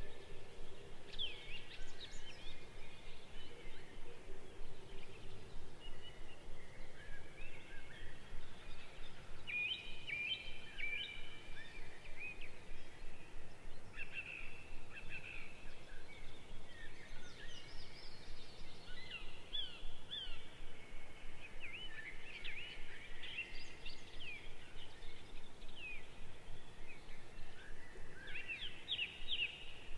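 Birds chirping and calling, with many short chirps and quick whistles one after another, over a steady hiss of open-air ambience.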